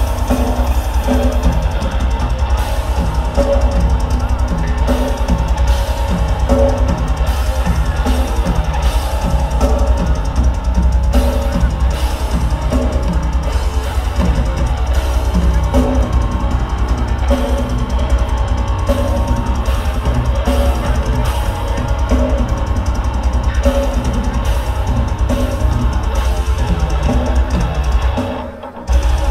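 Live heavy metal band playing: distorted guitars, bass guitar and a drum kit with fast, driving bass drum and cymbals. The sound dips briefly and comes back just before the end.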